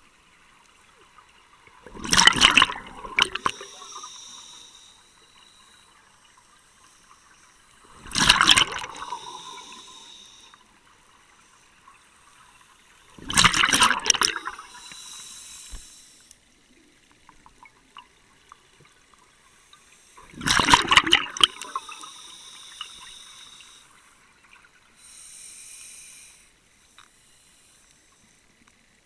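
Scuba diver breathing through a regulator underwater: four loud bursts of exhaled bubbles about six seconds apart, with a softer hiss between them.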